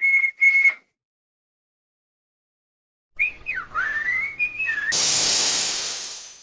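Two short, steady high whistle tones, then after a pause a whistle that slides and wavers in pitch, cut off by a burst of hiss that fades away.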